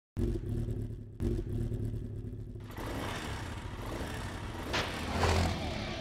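Motorcycle engine sound effect: the engine comes in suddenly and revs, dipping briefly about a second in. From about halfway a loud rushing hiss joins the engine.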